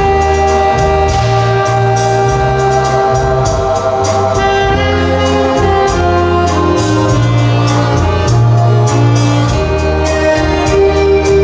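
Brass-led band music with a moving bass line over a steady beat.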